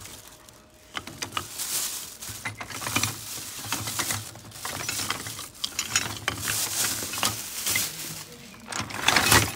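Hands rummaging through a plastic crate of wooden curtain-pole finials, rings and door handles: irregular knocks and clatter of wood and plastic pieces against each other, with a plastic carrier bag rustling. The loudest clatter comes near the end.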